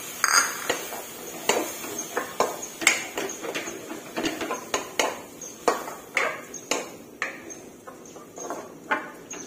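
Wooden spatula knocking and scraping against a wok while a chilli and shallot paste is stir-fried, in irregular clacks about two a second.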